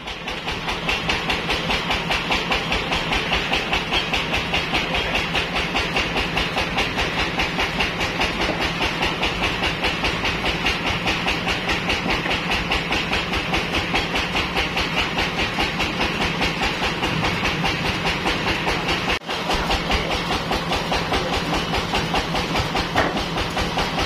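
Band sawmill machinery running steadily with a hissing, rhythmic pulse of several beats a second; it drops out for an instant about two-thirds of the way through.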